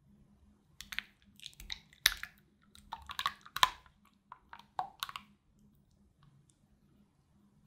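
Cream pouring from a small glass bottle into a glass bowl, splashing in irregular bursts for about four seconds, loudest around two seconds and three and a half seconds in. It then goes quiet as the stream thins.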